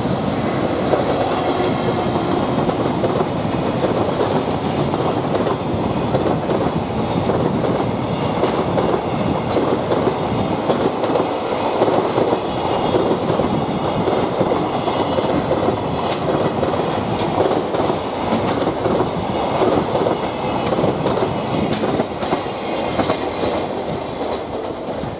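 Container freight train hauled by an EF65 electric locomotive passing: a steady, loud run of wheels on rail with clickety-clack over the rail joints, fading near the end as the last wagons go by.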